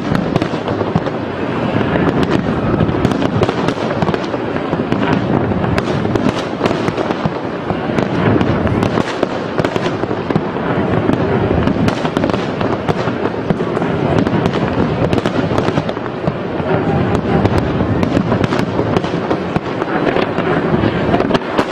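Aerial fireworks display: a dense, unbroken barrage of bursts and crackling, many reports overlapping with no pause.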